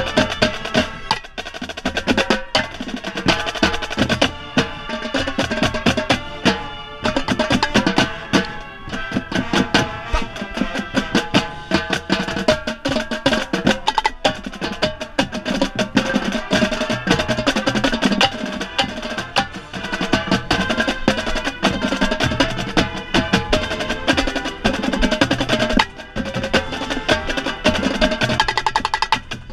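Marching band playing, with tenor drums (quads) close to the microphone beating dense, rapid strokes over sustained brass and winds.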